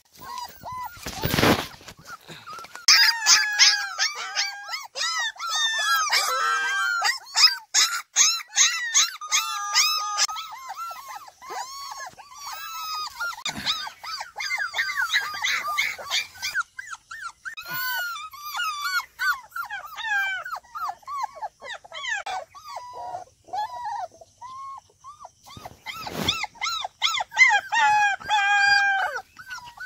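Several puppies whining and yelping in high, overlapping cries, almost without pause, while they try to climb a wall to get out. Two brief loud scuffs of noise come about a second in and near the end.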